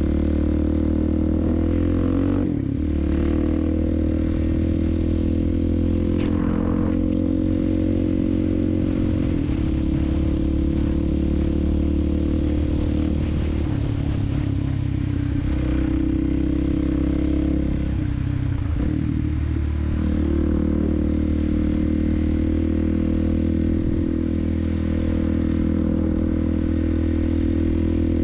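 Suzuki DRZ400SM's single-cylinder four-stroke engine running steadily under way on a dirt road, its note dipping and coming back up a few times as the throttle eases and opens.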